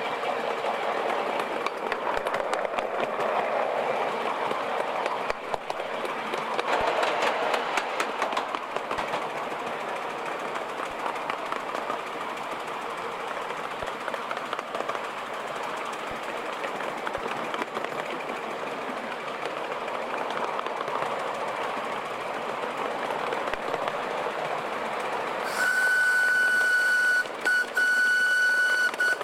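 Miniature steam locomotive running along the line: a steady rushing noise with occasional clicks from the wheels on the track. Near the end the engine's whistle sounds, a high steady note held for about three seconds with one short break.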